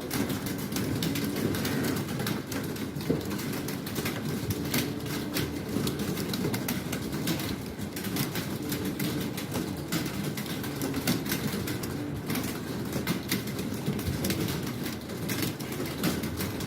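Many computer keyboards being typed on at once: a dense, continuous clatter of keystrokes from a roomful of test-takers, over a steady low background hum.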